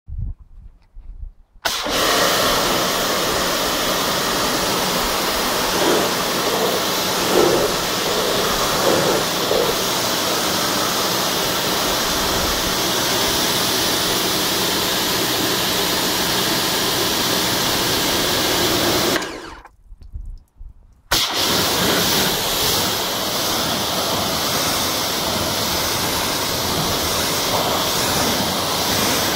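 Pressure washer running, its jet of water hissing against a car's body panels over the steady drone of the pump. It starts about two seconds in, cuts out for about two seconds a little past the middle, then runs steadily again.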